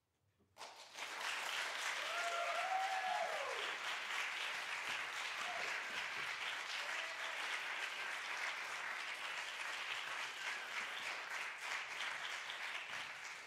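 Audience applauding. The applause breaks out suddenly about half a second in after near silence, then holds steady.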